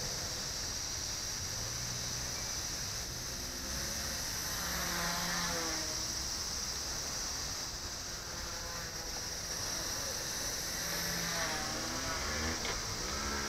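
Blade nano CP X micro electric RC helicopter flying, its thin motor and rotor whine sweeping up and down in pitch several times as it passes back and forth, over a steady high hiss.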